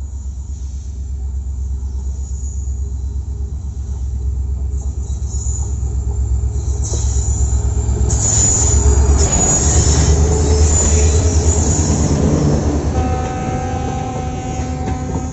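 WDP4D diesel locomotive, with its EMD two-stroke engine, hauling a passenger train past at speed: a low engine rumble grows louder as it approaches and is loudest about nine to twelve seconds in. The coaches then roll by with a steady high whine that starts about thirteen seconds in.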